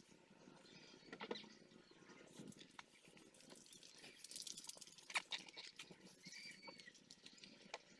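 Faint scattered clicks and light handling noises, with a sharper tick about five seconds in.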